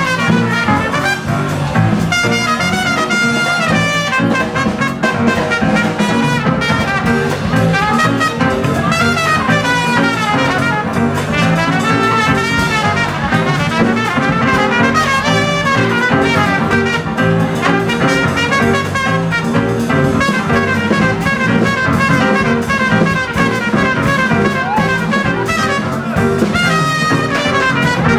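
Live small-group jazz: a trumpet plays a solo of fast, winding lines over double bass and drums.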